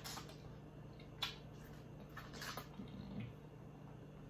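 Close-up wet eating sounds of a person biting and chewing sauce-coated corn on the cob: soft wet smacks and clicks of the mouth, the sharpest just over a second in, with a short cluster of them about halfway through.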